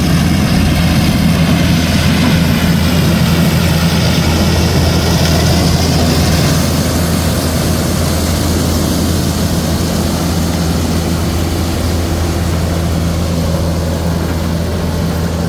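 Corn harvester running: a heavy engine's steady low drone over a dense wash of machinery noise, easing slightly about six seconds in.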